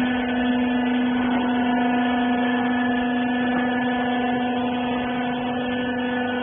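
Electric motor and hydraulic pump of a used-clothing baler running, a steady even hum.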